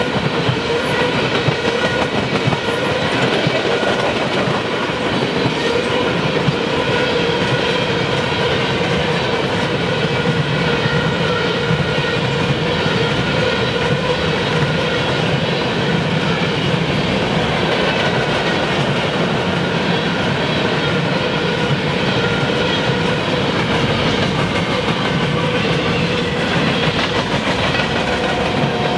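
Freight cars of a long train rolling past close by: a steady rumble of wheels on rail, with steady ringing tones running through it.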